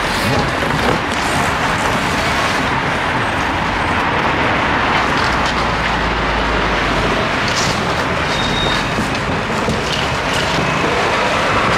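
Steady street traffic noise: a continuous even rush of passing road vehicles, with a few faint knocks over it.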